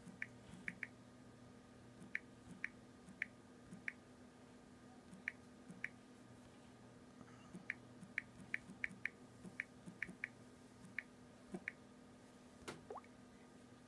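Samsung touchscreen keyboard key-press clicks from a Galaxy S4 Active as an account sign-in is typed: faint short ticks at an uneven typing pace, with a brief pause and then a quicker run of taps.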